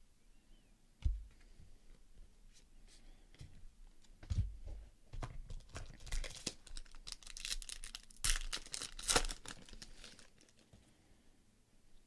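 Foil trading-card pack being torn open, its wrapper crinkling and tearing in a run of crackles from about four to ten seconds in, loudest near the end. There is a single light knock about a second in.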